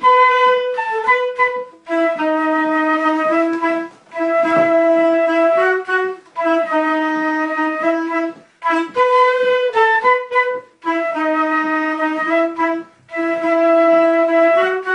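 A single wind instrument playing a slow melody in phrases of about two seconds, each made of long held notes, with short pauses between the phrases.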